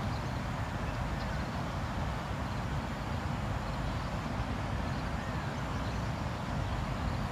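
Steady outdoor background noise with a low, fluttering rumble and an even hiss, unchanging throughout; no clear bee buzz stands out.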